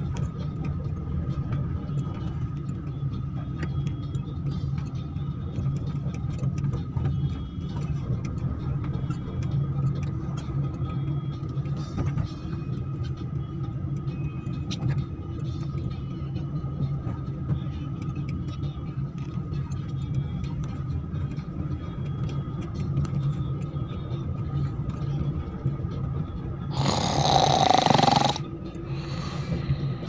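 Steady engine and road noise inside a moving car's cabin. Near the end there is a loud rushing burst lasting about a second and a half, then a shorter, fainter one.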